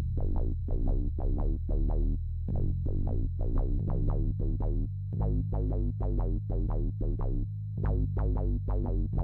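Electronic intro music: a synthesizer melody of short, evenly paced plucked notes over a steady low bass.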